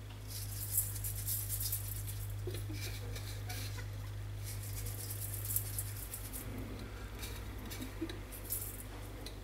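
Salt being sprinkled onto boiled potato cubes in a steel pot: a light patter of fine grains landing, densest in the first few seconds, with a little more near the end.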